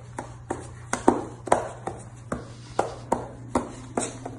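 A quick, uneven run of sharp taps, about two to three a second.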